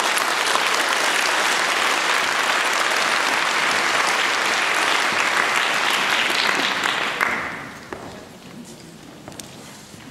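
Audience applause, a sustained round of clapping that dies away about seven to eight seconds in.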